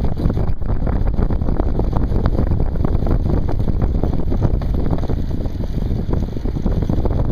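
Wind buffeting the microphone of a camera riding on a moving bicycle: a loud, steady rumble with a constant gusty flutter.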